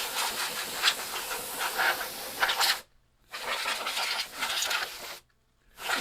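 Can of compressed air blasting dust and gunk out of a 1541-II floppy drive's mechanism, hissing in three long bursts with short breaks about three and five and a half seconds in.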